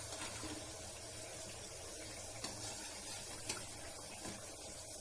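Chandrakala pastries deep-frying in oil on a low flame: a soft, steady sizzle, with a few light clicks of a slotted spoon against the kadai.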